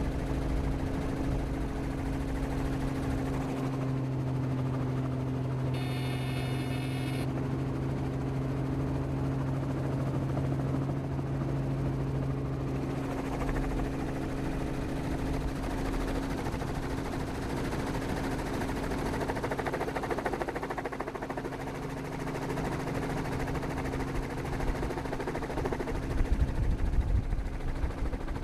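Helicopter in flight: steady rotor chop over a droning engine hum. Gusty wind rumble on the microphone grows louder near the end.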